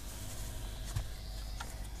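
Bugera 6262 Infinium tube guitar amp idling with a steady hum and hiss, the unwanted noise coming through its effects loop. A sharp click about a second in, with a couple of fainter ticks after it.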